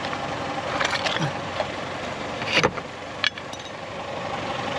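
Suzuki Jimny engine idling steadily, with a few sharp knocks over it, the loudest about two and a half seconds in.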